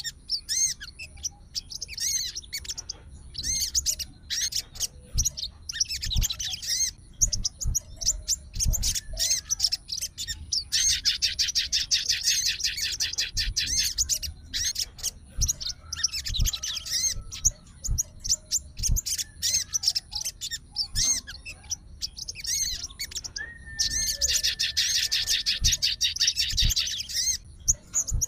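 Sogon songbird singing vigorously in bursts of rapid, high chattering trills, with the longest runs about 11 and 24 seconds in.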